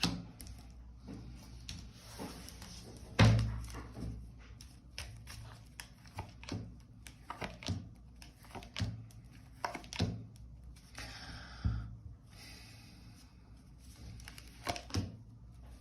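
Tarot cards being handled on a table: irregular taps and thunks, one louder thunk about three seconds in, and two short spells of card rustling past the middle.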